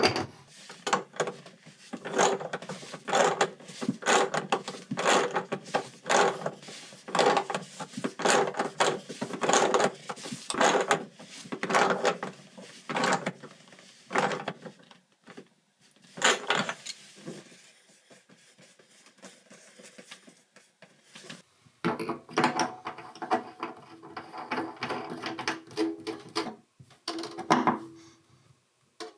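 Metal tools clicking and knocking against a chrome bathtub drain as the new drain is snugged up with a tub drain wrench and pliers. The clicks come steadily at first, ease off about halfway, then return near the end as the pop-up stopper is screwed back in.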